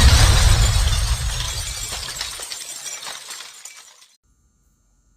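Shattering-glass crash with a deep boom, used as an intro sound effect. The glittering debris fades away over about four seconds, then cuts off abruptly.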